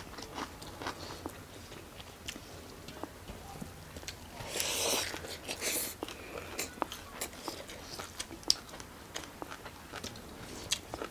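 Close-miked eating sounds: chewing and biting chicken curry, with many small sharp clicks and crunches and a longer noisy rush about halfway through.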